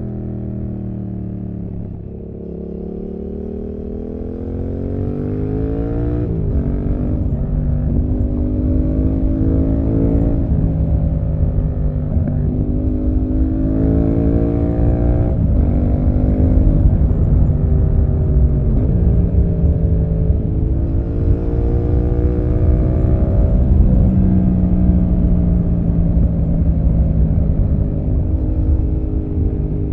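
Yamaha MT-07 parallel-twin with an SC-Project aftermarket exhaust, heard onboard. Revs fall off for the first couple of seconds, then the bike pulls up through the gears, the pitch climbing and dropping back at each upshift several times before holding steadier near the end. Wind and road rumble run underneath.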